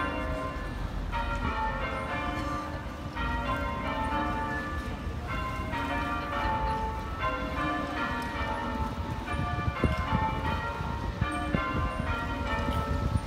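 Church bells ringing changes: rows of bell strokes that repeat about every two seconds, over a low, steady rumble.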